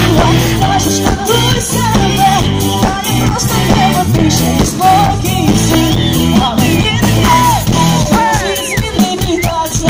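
Live rock band playing loud: drum kit, electric guitar and bass, with a woman singing over them.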